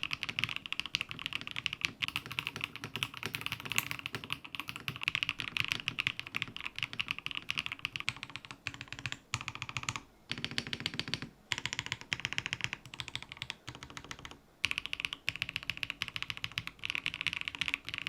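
Eave65 gasket-mounted mechanical keyboard, built with plate foam only, HMX Macchiato linear switches and PBT keycaps, being typed on quickly. It gives a bright, poppy clack, with a few short pauses in the typing.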